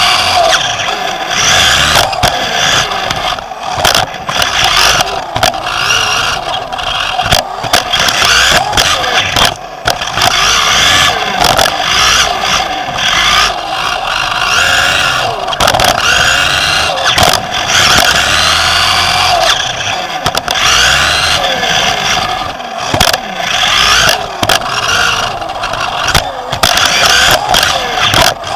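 Onboard sound of a Team Associated B5M 1/10-scale electric 2WD RC buggy racing on dirt: its electric motor whining up and down in pitch with the throttle, tyres scrubbing the dirt, and frequent sharp knocks from bumps and jump landings.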